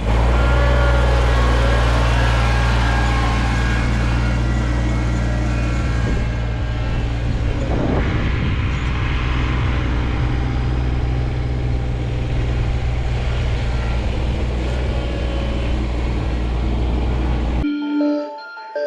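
Kubota BX compact tractor's three-cylinder diesel engine running steadily under work with the loader. It cuts off abruptly about a second before the end, giving way to music.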